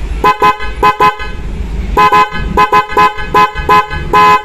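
Flosser 12 V snail horns (high and low tone) hanging free, not touching any body panel, sounded in a rapid, irregular series of short toots with one slightly longer blast near the end; hung free like this, their sound comes out clear and open.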